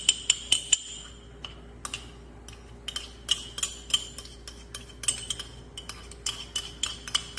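Metal spoon clinking against a ceramic cup, many quick irregular strikes, each with a short ring.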